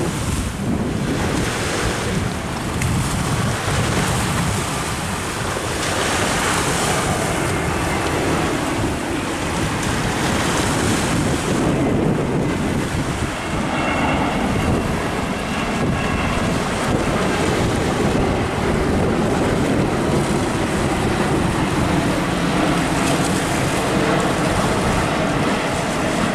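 Wind buffeting the microphone in a steady rush, with the jet engines of a Boeing 787 on final approach mixed in.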